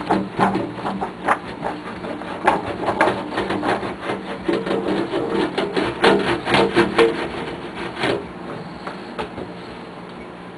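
Dent work on a tuba's brass tubing with a magnetic dent removal tool: irregular knocks and rubbing as the steel ball is worked over the dent, the brass ringing faintly. The knocking stops about eight seconds in.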